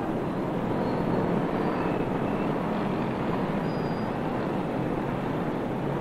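Steady noise of road traffic, with a few faint, short high tones above it.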